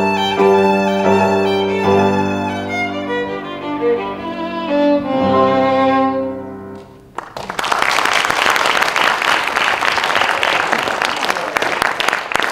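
Violin with piano accompaniment playing the closing bars of a piece, the final chord dying away about seven seconds in. Audience applause breaks out right after and runs on.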